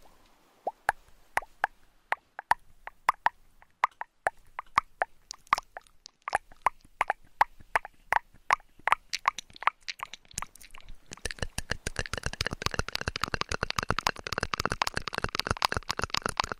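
ASMR trigger sounds close to a binaural microphone: sharp separate pops and plops, about two to three a second, turning about eleven seconds in into a fast, dense run of crackling taps.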